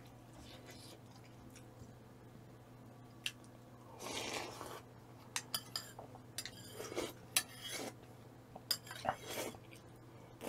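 Cutlery clinking and tapping against dishes during eating: a few scattered light clicks, with a short rush of noise about four seconds in. A faint steady hum runs underneath.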